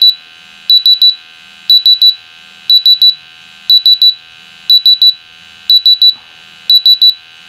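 RAE Systems QRAE 3 multi-gas detector sounding its pump alarm: high-pitched electronic beeps in quick groups of three, repeating about once a second. The alarm means the sample pump's inlet is blocked.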